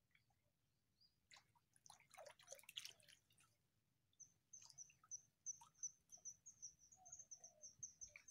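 Faint outdoor sound: a brief patch of rustling and clicking about a second and a half in, then a fast, steady run of short high chirps from a small animal.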